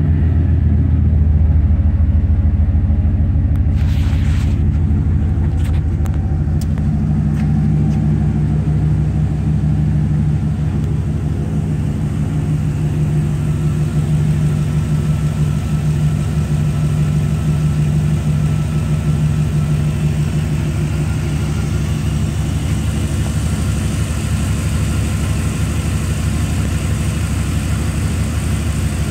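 2003 Dodge Ram 1500's 5.9-litre Magnum V8 running at a steady idle.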